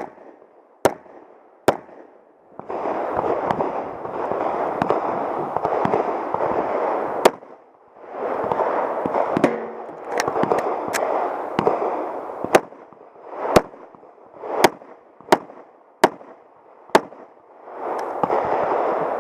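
Pistol shots from a Sig Sauer P226 chambered in .40 S&W, fired as about fifteen sharp cracks at irregular intervals. Three shots come in the first two seconds, then a short pause, then a quicker run of shots through the middle and later part. Between the strings there is a steady rushing noise.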